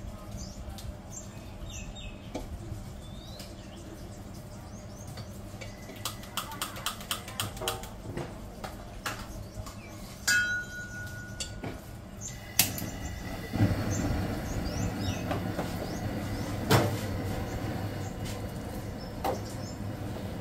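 Street-food kitchen ambience: a steady low roar with scattered clinks and clicks of utensils, a brief high tone just past halfway, and a few bird chirps. The roar grows louder about two thirds of the way in.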